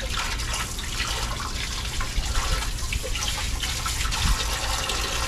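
Tap water running steadily into a concrete sink and splashing over hands rinsing a freshly scrubbed armored catfish.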